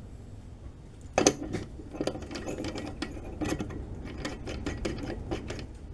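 A run of irregular clicks and light knocks, like parts or tools being handled, with one sharper knock about a second in.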